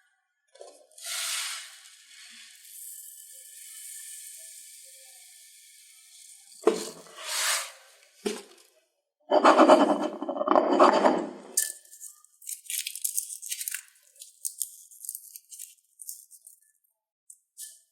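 Slime being handled and pressed. A swish comes about a second in, then a long crackling squish around the middle, then a run of small rapid clicks and pops.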